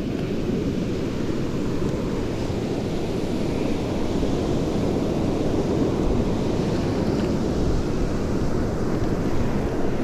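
Strong wind buffeting the microphone over the steady wash of surf on a sandy beach, a continuous low rumble with no let-up.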